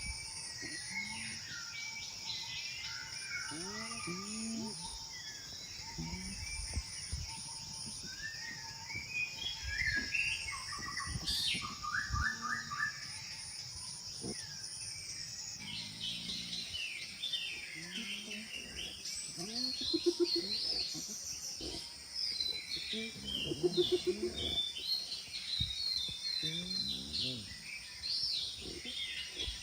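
Savanna ambience: many birds chirping over a steady high insect hum, with short low animal calls that come and go and are loudest in the second half.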